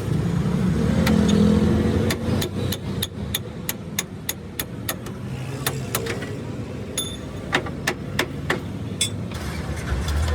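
An engine running, then from about two seconds in a run of sharp metallic knocks at roughly two to three a second, like hammer blows on steel during leaf-spring work.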